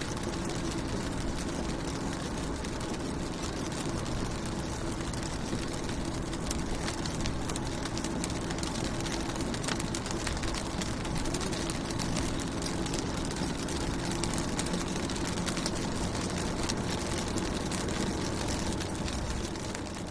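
Raindrops hitting a car window, heard from inside the car: a steady hiss of rain dotted with many small drop ticks, over a low steady hum.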